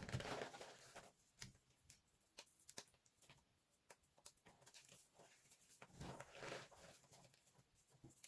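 Puffed, microwaved soap dusted with cornstarch being crushed by hand: faint crunching and crackling with scattered sharp clicks, swelling near the start and again near the end.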